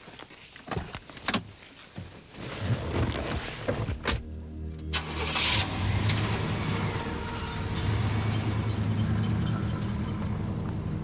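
Knocks and clicks of a vehicle door being handled, a door slammed shut about four seconds in, then the vehicle's engine starts with a brief burst and runs steadily as it pulls away.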